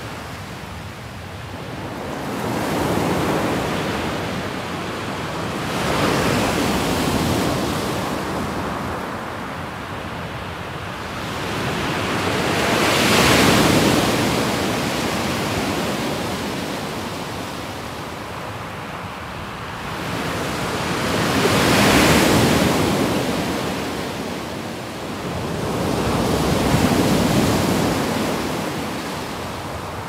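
Small waves breaking and washing up a pebble beach, the wash swelling and ebbing every few seconds, with the two strongest surges about halfway through and again about two-thirds of the way in.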